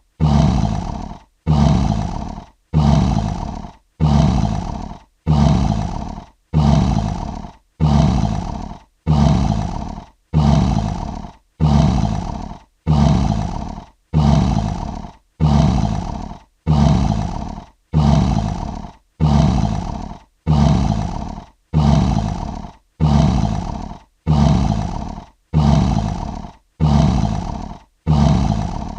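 Lion roar sound effect: the same short roaring grunt repeated about every 1.2 s as a loop, each one starting loud and fading off before the next.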